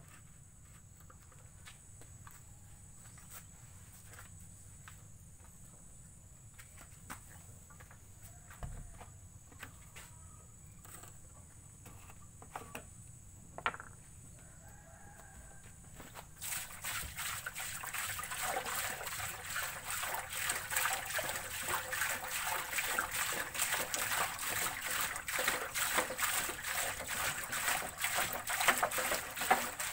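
Coconut sap pouring from a plastic jerrycan into a large iron wok, splashing and gushing steadily from a little over halfway in. Before that, low outdoor background with a few clicks and a brief chicken call.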